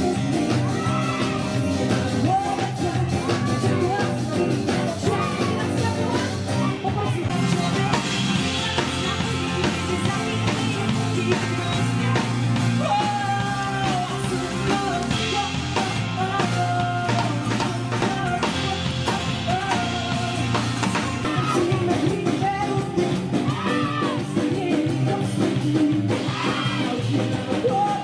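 A live pop-rock band playing with a woman singing lead, over guitars, keyboard and a drum kit.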